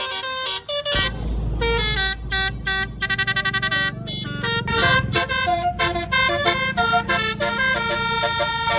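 A tour bus's telolet basuri multi-tone horn plays a melody of quick stepped notes, including a burst of rapid repeated notes about three seconds in. The bus's engine rumbles underneath, starting about a second in.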